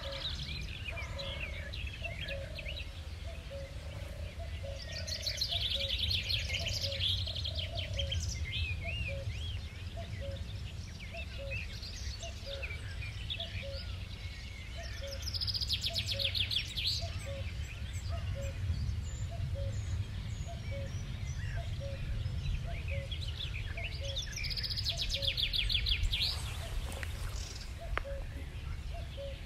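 Birdsong: a songbird sings a rapid, high trilling phrase about every ten seconds. Under it runs a steady string of short, low notes, repeated about every three-quarters of a second, and a low rumble.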